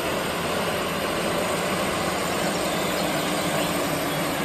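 JCB Fastrac tractor's diesel engine running steadily under load as it pulls a plough through the soil.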